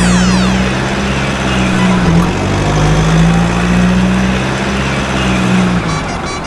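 A vehicle engine running steadily with a deep hum, dipping briefly about two seconds in and fading near the end. A falling whistle-like glide sounds at the very start, and a fast high-pitched pulsing comes in near the end.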